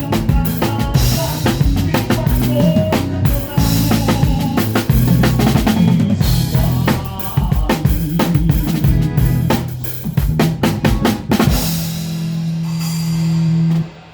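Drum kit played hard, with dense kick, snare and rimshot strokes over a bass line. It ends on a held low note that cuts off suddenly near the end.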